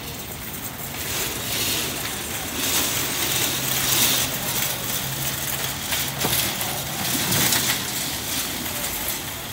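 Metal shopping carts rattling and clattering as they roll over asphalt, a dense run of clinks and knocks, with a low steady hum for a few seconds in the middle.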